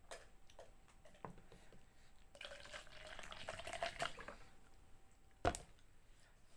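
Green tea poured from a plastic bottle into a tall plastic cup for about two seconds, the pitch of the pour rising as the cup fills. Then one sharp knock as the bottle is set down on the table, with a few light handling clicks before the pour.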